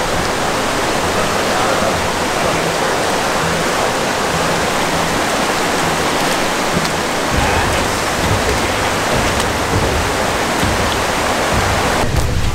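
Steady rush of flowing water. A low rumble joins about seven seconds in.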